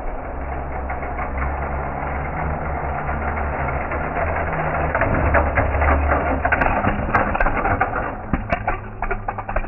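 Die-cast toy cars rolling down a multi-lane orange plastic race track, a steady rumble with rapid fine clicking from the wheels running over the track. It grows louder about halfway through as the cars near the bottom, with a few sharp clicks toward the end.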